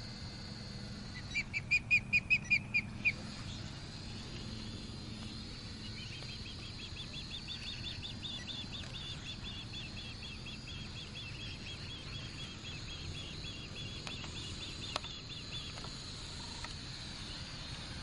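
Osprey calling: a burst of about nine loud, shrill chirps about a second in, then from about six seconds a longer, fainter run of quick chirps, about four a second, lasting close to ten seconds.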